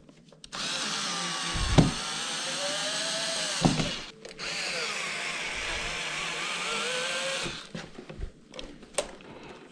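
Cordless drill driving screws in two runs of about three seconds each, its motor pitch wavering as it works.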